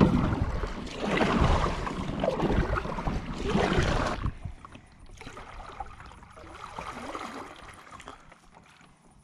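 Kayak paddle strokes dipping and pulling through the water, about one a second for the first four seconds, then fainter for the rest.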